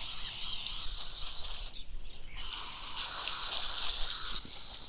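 Garden hose spray nozzle hissing as the water rinses a dog's dyed paws on concrete, with a brief break in the spray about two seconds in.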